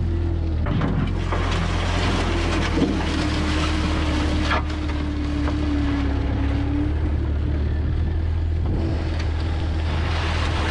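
Excavator engine running steadily while backfilling a trench. A whine rises above it for a few seconds in the middle, and there is a single knock a little before halfway.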